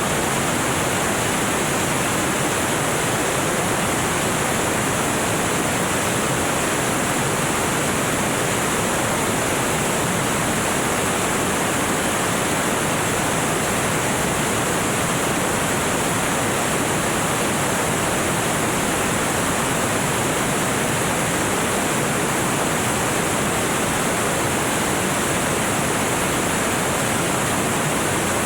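Steady rushing noise of a light aircraft in flight, airflow and engine blended into one even hiss with no change in level or pitch.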